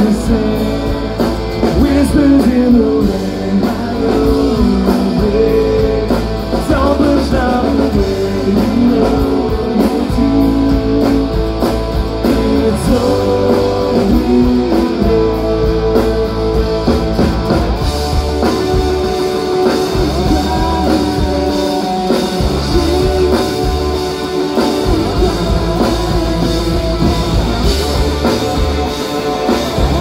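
Live rock band playing a song: guitars, bass and drum kit, with a sung vocal. The drum pattern changes about two-thirds of the way through.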